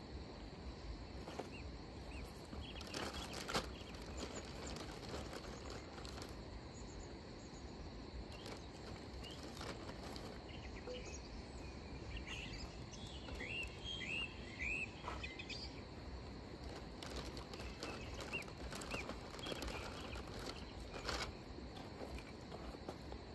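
Open-air ambience: a steady high insect drone with a bird chirping several times midway, and a few sharp clicks and knocks.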